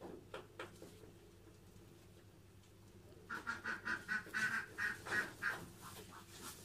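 A rapid series of short, nasal, quack-like animal calls, about four a second, starting about halfway through and lasting a couple of seconds. A few soft knocks come just before.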